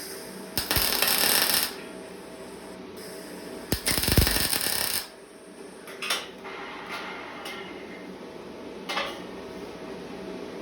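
Metalworking in a workshop: two loud bursts of hissing noise about a second long each, the second starting with a heavy thump. A few short metal clinks follow over a steady low hum.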